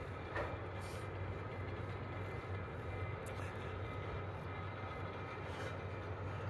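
Niesen funicular running on its track: a steady low hum with a thin, steady high whine, as the car and its haul cable move along the viaduct. A few light clicks come through the hum.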